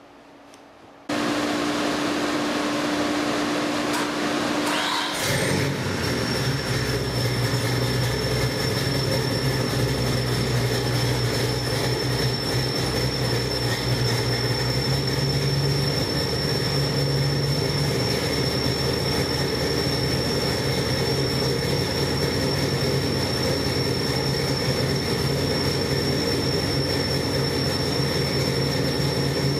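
Ford 427 stroker small-block V8, built on a 351 Windsor block with a Holley carburettor, on an engine dyno. A loud mechanical noise starts about a second in; the engine catches about five seconds in and then runs at a steady fast idle of roughly 900 to 1,200 rpm, with a thin high whine over it.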